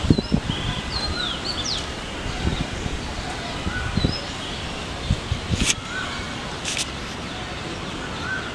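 Small birds chirping on and off with short, quick falling calls over a steady outdoor background hiss, with a few low thumps in the first half and two sharp clicks a little past the middle.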